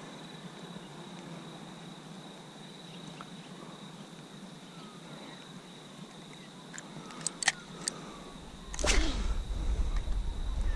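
Quiet open-air ambience with a faint steady high tone. About seven seconds in come a few sharp clicks, then near the end a sudden swish followed by loud low rumbling, like handling or wind on the microphone.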